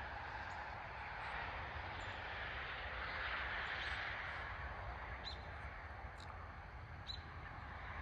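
Rural dawn ambience: a steady, distant hiss with a low rumble, swelling and easing, with a few short bird chirps in the second half.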